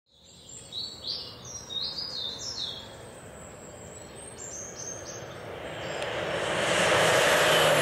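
Birds chirping in a run of short, falling chirps. Then an airplane's rushing flyby noise swells over the last two seconds or so.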